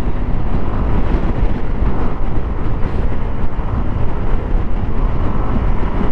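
A motorcycle riding along the road: steady rush of wind and road noise with the engine running underneath.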